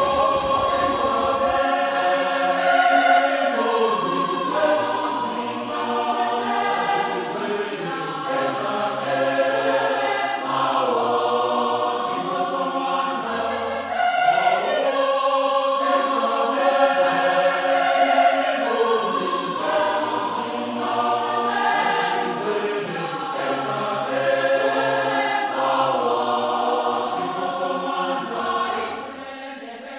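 Choral music: a choir singing slow, held chords. Over the first second or two a loud steady hiss plays along with it, then cuts off suddenly.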